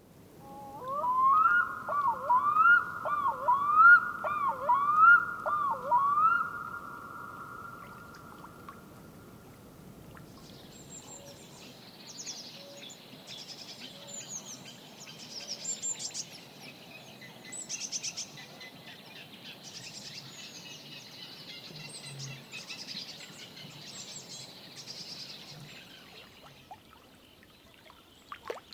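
Wetland ambience of wild animal calls. It opens with a loud run of about eight looping, swooping calls that trail off into a held tone. From about ten seconds in comes a busy, quieter chorus of high chirps over a soft background hiss.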